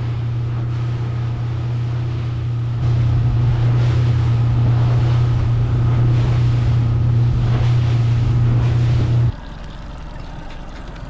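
Boat's outboard motor running steadily under way, with wind buffeting the microphone; it gets louder about three seconds in and stops abruptly about nine seconds in, leaving quieter wind and water noise.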